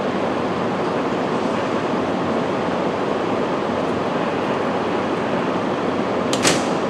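Steady, even rumble of a Keihan 7200-series electric commuter train standing at an underground platform, with one short sharp clack about six seconds in.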